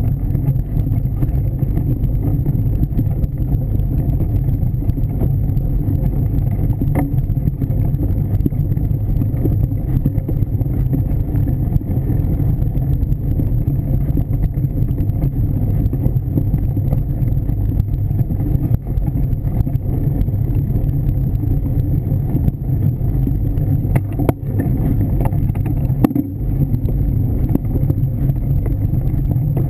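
Mountain bike rolling over a dirt forest trail, picked up by a bike-mounted camera: a loud, steady low rumble of tyre and frame vibration and wind on the microphone, with a couple of sharp knocks from bumps.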